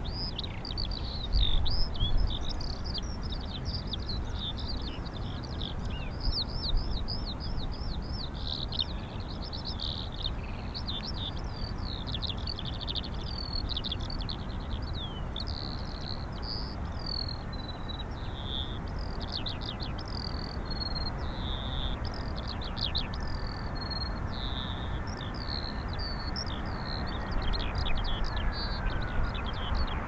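Small birds chirping and singing continuously over a steady low rumble of strong gusty wind on the microphone. Beneath them runs the faint whine of an easyJet Airbus jet on final approach, which drops in pitch near the end as the aircraft reaches the runway.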